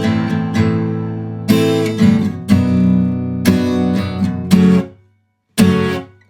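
Acoustic guitar strumming chords slowly, a stroke about every second. Some chords are muted short, and the sound cuts off sharply to silence about five seconds in before one more chord.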